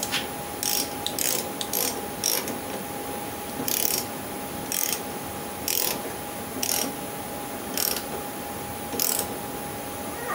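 Ratchet wrench clicking in short spells, about one swing a second, as it runs down the nuts on top of a car's coil-over strut.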